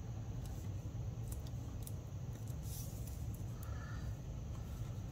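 Light handling of small paper and card pieces: a few faint clicks and a brief rustle, over a steady low hum.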